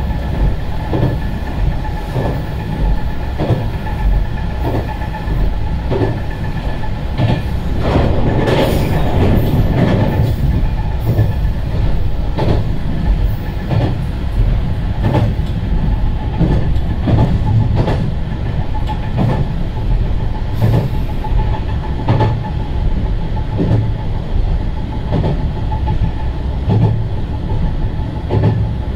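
Diesel railcar running along the line: its wheels click over rail joints about once a second over a steady rumble and a constant whine from the drivetrain. The running noise grows louder for a couple of seconds about eight seconds in.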